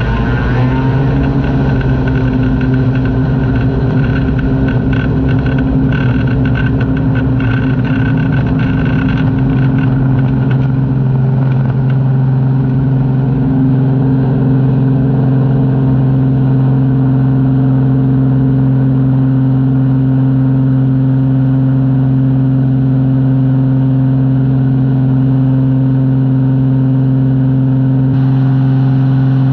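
Light airplane's piston engine and propeller at full takeoff power: a loud, steady drone that comes up in pitch in the first second, with knocks and rattles from the ground roll on the rough dirt strip during the first ten seconds or so.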